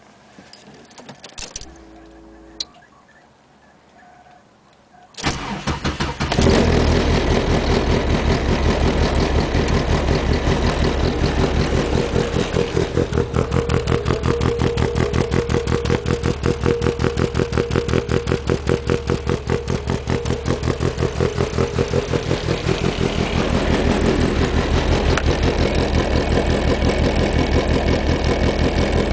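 Cold start of a 1992 VW Golf GTI 16V's 2.0-litre 9A four-cylinder, cammed with an exhaust cam on the intake side: it cranks briefly and catches about five seconds in, then settles into a rough, lumpy idle with an even pulse. A click sounds before the start.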